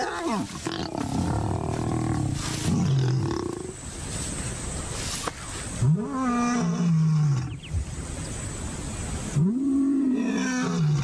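Lions mating, with the pair snarling and growling low in the first few seconds. Then a male lion roars: two long, deep calls that rise and then fall, about six and nine and a half seconds in, as he announces himself to the neighbourhood.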